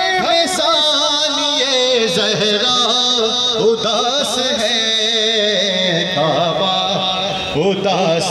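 A noha, a chanted mourning lament, sung by a voice with a wavering, ornamented melody.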